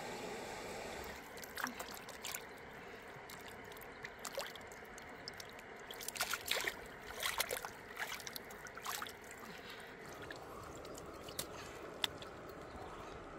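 Water splashing and sloshing as a piece of raw pork is rinsed by hand in a shallow river. The splashes come irregularly and are busiest in the middle, thinning to a few light ticks near the end.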